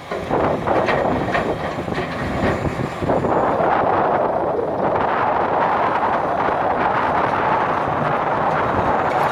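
Hitachi 470 excavator working at a loading job, its diesel engine and hydraulics running steadily. There are irregular knocks and clatter over the first few seconds, then a louder, steady rush from about three seconds in.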